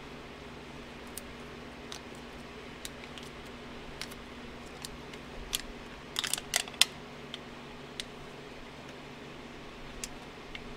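Small, freshly hardened steel spring clips clinking as they are handled and lifted out of a quench pot: scattered light clicks, with a quick cluster of sharp metal clinks about six seconds in, over a steady low hum.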